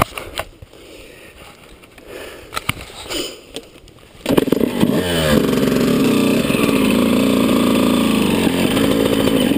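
A few scattered clicks and knocks, then about four seconds in a dirt bike's engine starts abruptly, revs briefly and settles into steady running.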